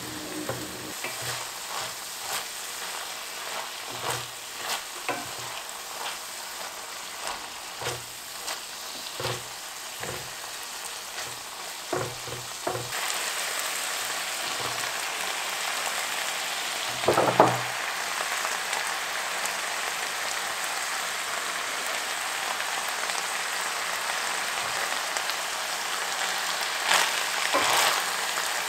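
Ground pork chorizo sizzling in an enamelled cast-iron pot while a wooden spatula scrapes and taps through it in irregular strokes. About halfway, sliced red bell peppers go into the pot and the sizzle grows louder. A single loud knock follows a few seconds later, and the stirring starts again near the end.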